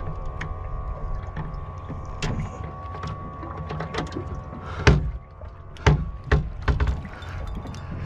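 Sounds aboard a small boat on open water: a steady low hum with light, irregular clicks and knocks. Several heavy thumps come about five to seven seconds in.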